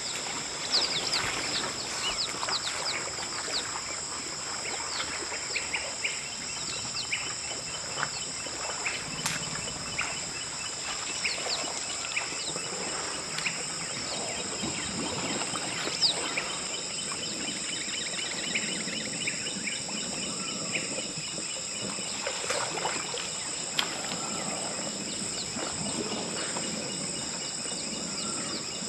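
Wild forest ambience: a steady high-pitched insect drone with many short bird chirps and calls over it.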